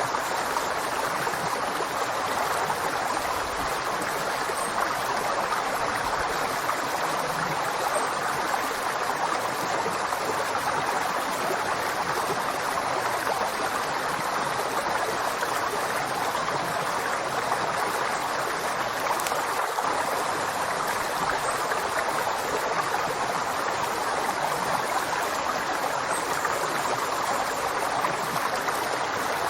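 River water flowing steadily, a constant rushing of a stream over rocks with no changes in level.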